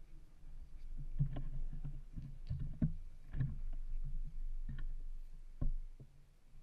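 Camera handling noise: a series of knocks and bumps over a low rumble. The loudest bumps come about three seconds in and again near the end.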